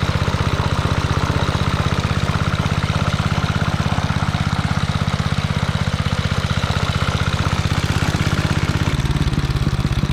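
Gasoline engine of a Locke Triplex reel mower running steadily while mowing, with an even, rapid firing beat; the low engine note shifts slightly about nine seconds in.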